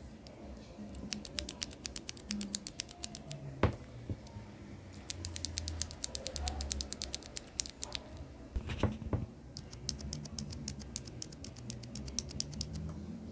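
Outemu mechanical keyboard switches clicking as they are pressed rapidly, in three quick runs of clicks. There are a few heavier knocks, one about three and a half seconds in and a couple around nine seconds in.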